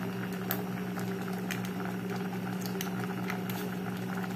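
Pot of ramen broth and noodles boiling on the stove, with scattered faint pops of bursting bubbles over a steady low hum.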